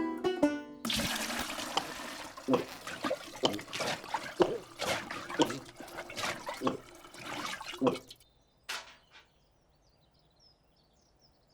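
Water gurgling and splashing in a run of regular pulses for about seven seconds, stopping suddenly; then near silence with one faint click.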